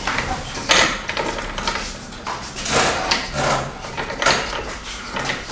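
A roof crossbar's foot and lock being worked by hand with its key: a string of short clicks, knocks and scrapes of plastic and metal, the loudest about a second in and about three seconds in.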